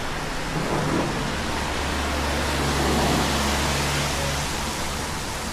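Steady rushing of falling water. A low drone rises and fades away in the middle.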